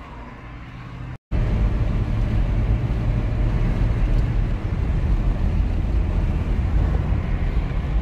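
A low hum for about a second, a brief silence, then steady road and wind noise with a heavy low rumble inside the cabin of a car driving at highway speed.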